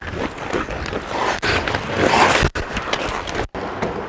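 Ice hockey skate blades scraping and carving on the ice, heard close on a player's body-worn mic, broken twice by sudden cuts.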